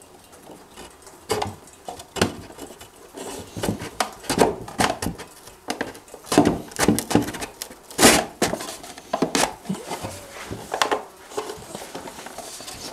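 Small fir divider board being slid and pressed into the dado slots of a wooden tool box: irregular knocks, taps and scraping of wood rubbing against wood.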